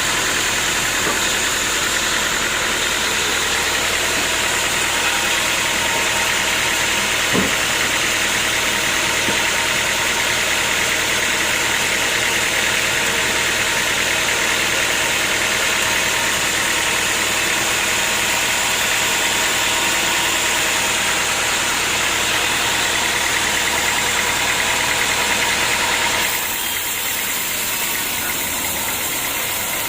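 Sawmill machinery running steadily, a continuous mechanical drone and hiss with a single short knock about seven seconds in. Near the end the sound changes and drops slightly in level.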